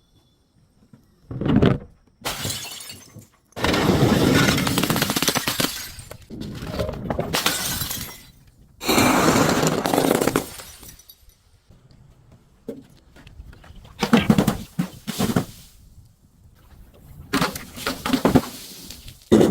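Glass bottles breaking and being crushed: a run of crunching, shattering bursts, some sharp and short, several lasting one to two seconds, with brief pauses between them.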